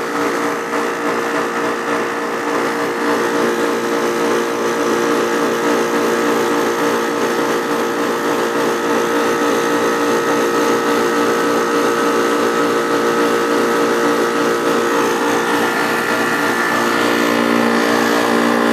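Refrigerant recovery machine running steadily, its compressor motor giving a constant hum with a steady whine, while it pulls refrigerant out of the system into the recovery cylinder.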